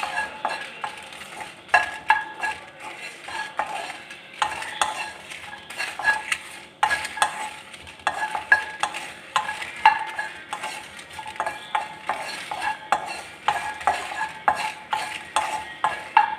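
Wooden spatula stirring dried red chillies and cashew nuts in a nonstick pan as they dry-roast on low flame: irregular knocks and scrapes of wood on the pan, several a second.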